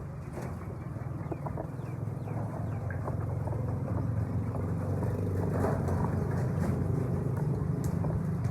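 A motor running steadily with a low rumble that grows louder over the first few seconds, with scattered clicks and a few faint bird calls.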